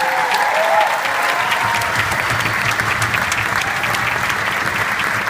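Audience applauding loudly and steadily, with a voice or two calling out in the first second.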